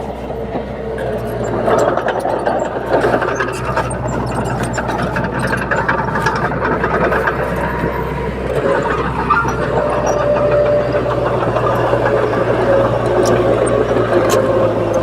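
Komatsu D21P bulldozer's diesel engine running steadily under load while pushing soil, with short metallic clanks throughout.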